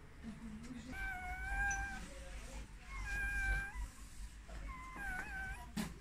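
Newborn puppies, only a day or two old and chilled, whining: three high, thin cries, each up to about a second long, with short pauses between.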